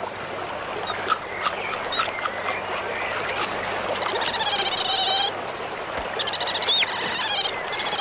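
Ravens calling: a string of wavering, gurgling croaks and a few short rising notes, with some small clicks near the start, over a steady background of forest ambience.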